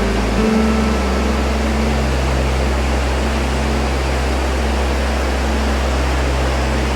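Soundtrack music: a held low bass note that shifts pitch about half a second in, under a dense, steady hiss.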